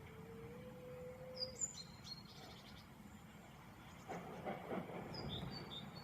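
Faint outdoor background of low steady rumble, with small birds chirping in short high bursts twice. A brief louder rough noise comes about four seconds in.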